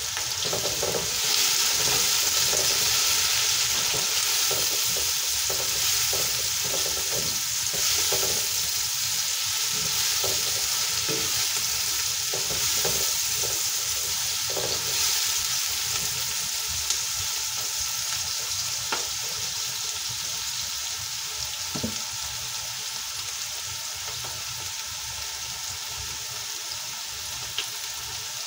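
Chopped onions and garlic sizzling in hot oil in a pot, stirred with a slotted spatula that scrapes the pan through roughly the first half. The sizzle eases off gradually toward the end.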